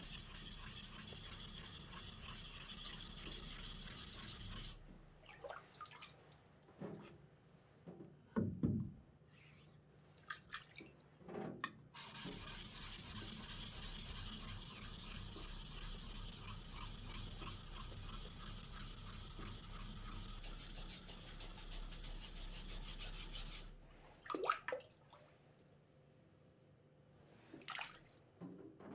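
Sashimi knife (yanagiba) blade being stroked back and forth by hand on a wet 400-grit whetstone, a steady gritty scraping. It runs for the first five seconds, stops, and comes back for about twelve seconds from around twelve seconds in. The quieter gaps hold a few scattered knocks.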